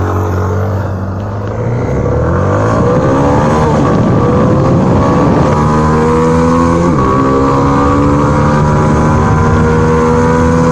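Yamaha Fazer 250 single-cylinder engine under full-throttle acceleration, revving up high with upshifts about four and seven seconds in, then holding high revs. Heard over wind rush at highway speed.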